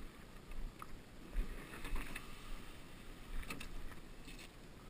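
Scattered knocks and clunks of gear being handled inside an aluminum jon boat, with a low rumble underneath.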